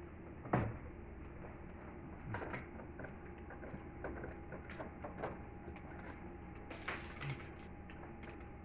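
Scattered light knocks and clicks of objects being handled, over a faint steady hum; the sharpest knock comes about half a second in.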